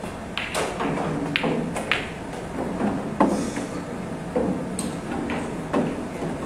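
Pool balls being played: the cue striking the cue ball, then balls clicking together and knocking against the cushions in a series of sharp knocks over several seconds, the loudest about three seconds in.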